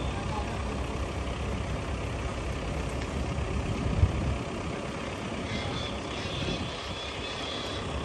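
Gusty wind buffeting the microphone as a low, uneven rumble, with a single thump about four seconds in.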